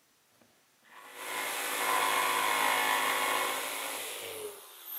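Corded jigsaw starting about a second in and cutting through 3/4-inch plywood, then released near the end, its motor winding down with a falling pitch.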